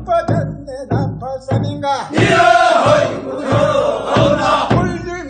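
Voices singing a Korean rice-paddy weeding work song (non maeneun sori) for the second weeding, in short chanted phrases with a longer, louder held phrase about two seconds in.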